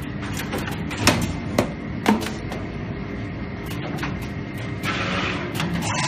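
SSB420 metal spiral wire forming and binding machine running, a steady mechanical whir with three sharp clicks about a second in and a hiss near the end.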